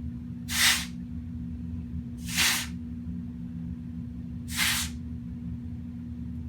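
Can of compressed air giving three short bursts, each about a third of a second, blowing dust out from between the fins of a graphics card heatsink. A steady low hum runs underneath.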